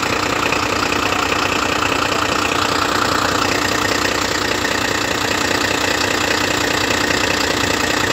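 An engine idling steadily, with an even low throb and a steady hum over it.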